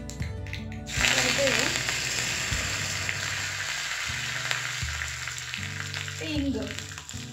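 Curry leaves dropped into hot ghee in a small iron tempering ladle set off a sudden loud sizzle about a second in, which slowly dies down. This is a South Indian tempering for rasam. Low background music runs underneath.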